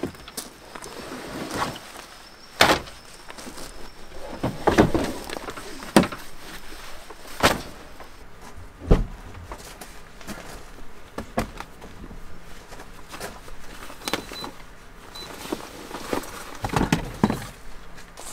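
Gear being handled in and around a pickup truck: scattered knocks, clicks and rustling, with several sharp single knocks and a louder flurry of knocking and rustling near the end.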